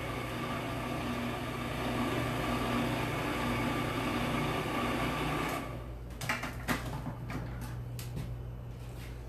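Food processor motor running steadily, grinding sunflower seeds that are still powdery on their way to becoming seed butter. It stops about five and a half seconds in, followed by several clicks and knocks as the lid is unlocked and lifted off.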